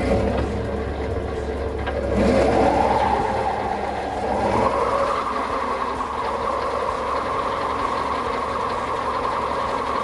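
Caterpillar 299D compact track loader running with its Wolverine hydraulic brush mower attached: the mower's hydraulic drive and right-angle gearbox spin up, a whine rising in pitch from about two seconds in, then holding a steady hum over the loader's engine.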